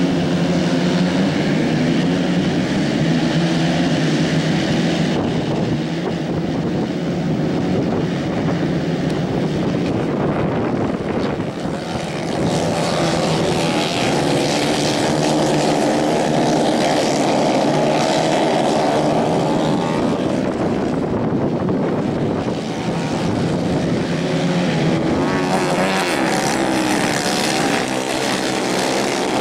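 A pack of 150 cc dirt-track racing karts running together at race speed, many small engines overlapping. Their pitch rises and falls as the karts accelerate down the straight and lift through the corners.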